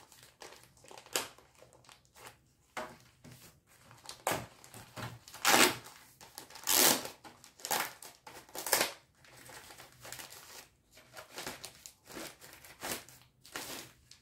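Plastic wrapping on a router crinkling and rustling in irregular handfuls as it is handled and pulled off, with three louder crinkles in the middle.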